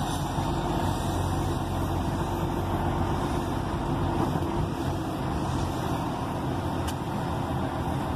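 Truck's diesel engine running steadily at low speed, a low drone heard from inside the cab.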